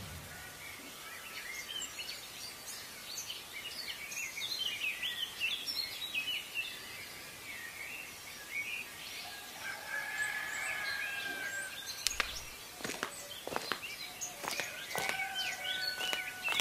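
Birds chirping: many short, quick calls through the first half, then a few longer held whistling tones. A handful of sharp clicks come about two-thirds of the way through.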